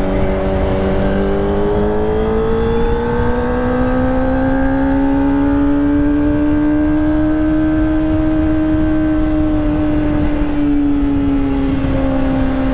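Kawasaki ZX-25R's 250 cc inline-four breathing through a Prospeed Shark high-mount exhaust, running steadily under way. Its note climbs slowly for several seconds, then eases back down, over a low rush of noise.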